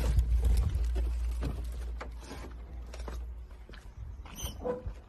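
Low rumble and rustle of a phone rubbing against clothing, fading over the first couple of seconds. Scattered knocks and footfalls follow as someone climbs down the steps of a truck cab.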